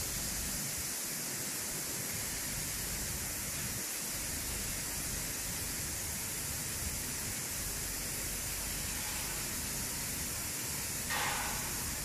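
Steady hiss of an automatic touchless car wash machine at work, with a short, louder rush of water spray about eleven seconds in as its jets play on the car.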